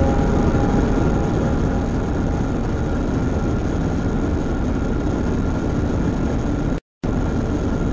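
Experimental electronic noise music: a dense, rumbling wall of noise, heaviest in the bass. Near the end it cuts out to silence for a moment, then a similar noise picks up again.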